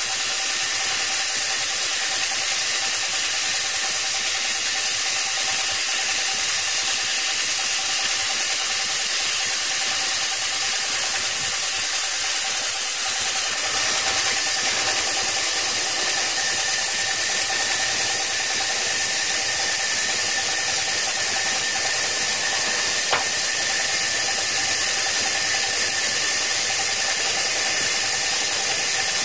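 Horizontal band sawmill running steadily while its blade saws lengthwise through a log: an even, high hiss over a faint steady whine.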